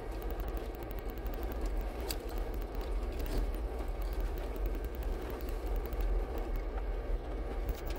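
Jeep Wrangler crawling up a rough gravel track, heard from inside the cab: a steady low engine and tyre rumble with a few sharp clicks and rattles.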